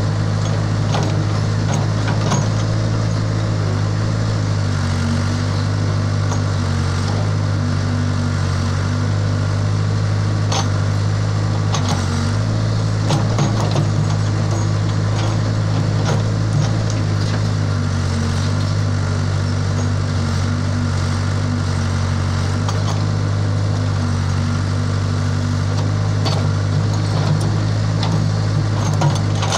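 Case 580 Super H backhoe loader's diesel engine running steadily under load while the backhoe arm digs, its pitch shifting slightly now and then, with a few sharp clunks from the working bucket and arm.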